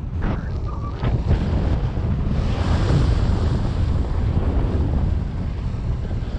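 Wind buffeting the microphone: a steady, heavy rumble of rushing air.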